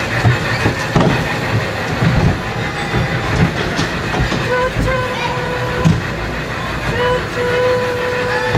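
Small electric kiddie ride train rolling along its track: a steady rumble with irregular knocks and rattles from the cars. From about halfway, a thin steady whine comes and goes several times.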